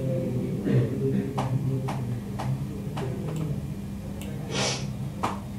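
Computer mouse clicking, short sharp clicks about every half second for a couple of seconds, over a steady low hum; a brief hiss of breath or rustle comes near the end.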